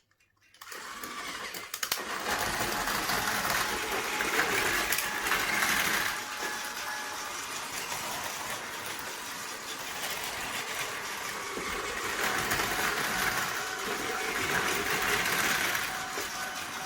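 Battery-powered Plarail toy trains running on plastic track: a steady motor whir with wheel rattle that starts up about a second in and swells louder twice as the trains pass close by.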